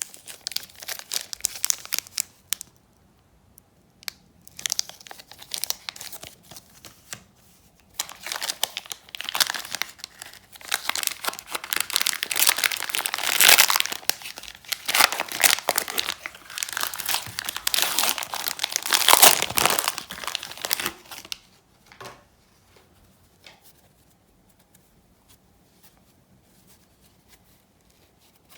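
Plastic or foil packaging of trading cards being torn open and crumpled by hand, in bursts of crinkling that stop about two-thirds of the way through. Only faint small handling ticks follow.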